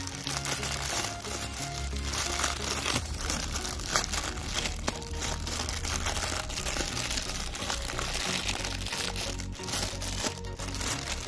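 Thin clear plastic packaging bag crinkling steadily as fingers squeeze and pull at it, over background music.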